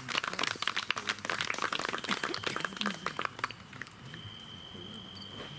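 A small audience clapping after a poem, a dense patter of claps lasting about three and a half seconds and then dying away.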